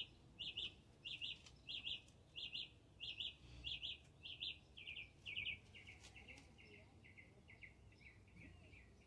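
Repeated high chirping: short clusters of quick pulses, about one and a half a second. About six seconds in it turns lower, fainter and quicker.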